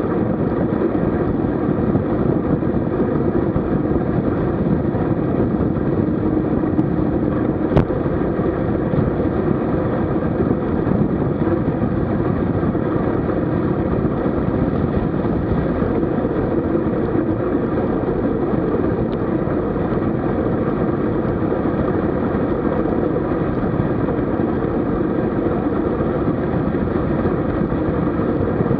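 Steady wind rush and road noise on the microphone of a camera riding along on a moving road bike, with a single sharp click about eight seconds in.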